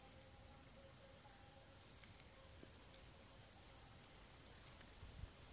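Near silence: faint room tone with a steady, high-pitched insect trill.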